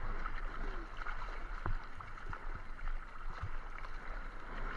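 Steady wash of sea water around a surfer in the surf, with a few faint knocks.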